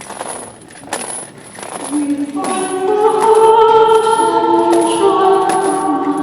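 Music starts a couple of seconds in: long held notes in several parts, like a choir singing, which grows louder. Before it come scattered clicks over background noise.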